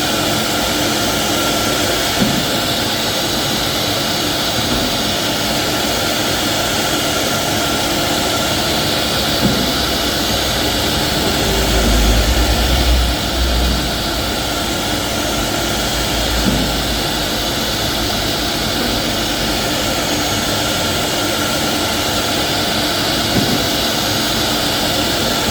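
Four-spindle CNC router (PRO 4AP) milling a 3D relief panel into solid wood, a steady whirring hiss of spindles and cutting, with a few light clicks and a stronger low rumble about halfway through.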